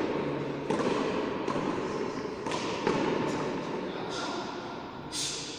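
Frontón ball rally: a hard ball struck and hitting the walls and floor of the court about seven times, each sharp smack echoing in the enclosed court.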